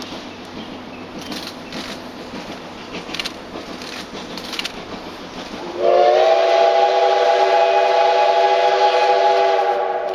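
Steam whistle of JNR Class C11 tank locomotive C11 171 sounding one long blast, sliding briefly up in pitch as it opens about six seconds in, then held steady and dying away near the end.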